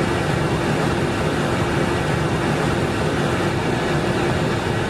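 Steady cabin drone of an Airbus A320 in flight, engine and airflow noise, with a faint steady hum.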